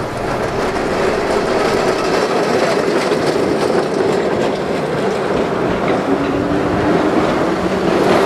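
Electric tram running along street track: a steady rumble and rattle of steel wheels on rail, with repeated clicks over the rail joints and a steady hum under it.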